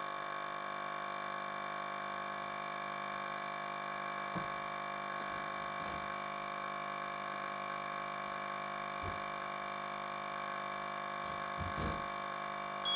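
Steady hum made of several held tones, with a few faint soft knocks.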